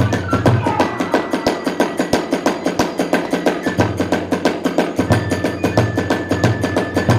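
Kagura hayashi ensemble playing a fast, driving rhythm: rapid drum strokes and clashing small hand cymbals, with a bamboo flute holding long high notes over them.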